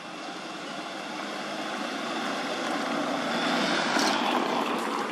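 Steady engine and road noise of a passing vehicle, swelling to its loudest about four seconds in and easing off near the end.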